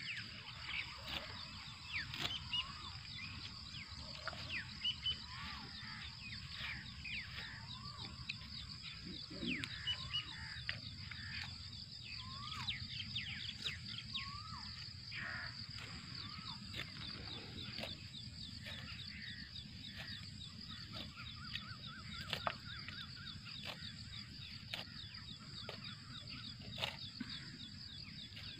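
Several birds chirping and calling in short rising and falling notes over a steady high insect buzz, with a few scattered short clicks.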